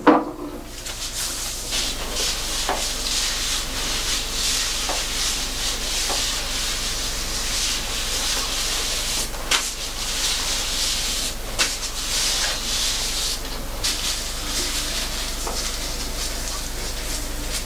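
Blue nitrile-gloved hands rubbing and scrubbing a hydrating treatment into wet, coily natural hair and scalp: a steady, hissy, squishy rubbing with a few small clicks now and then.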